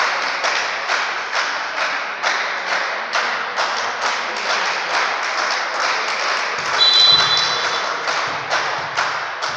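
Steady rhythmic clapping, about three claps a second, echoing in a gym hall, with one referee's whistle blast of about a second, about seven seconds in.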